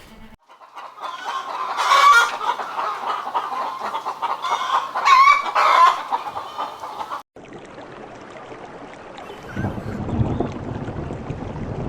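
Chickens clucking, with loud calls about two seconds in and again around five to six seconds. About seven seconds in the sound cuts off abruptly and gives way to a low, noisy rumble.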